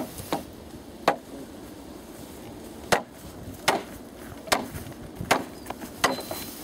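A hatchet striking wooden fence poles: about seven sharp, uneven knocks, roughly one a second, with a pause of nearly two seconds after the second blow.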